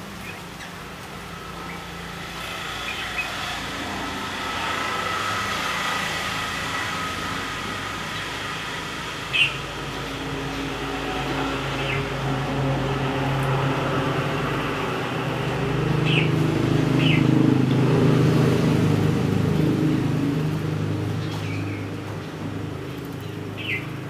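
A motor vehicle's low engine hum swells slowly, is loudest about three-quarters of the way through, then fades. Several short, high bird chirps break in over it.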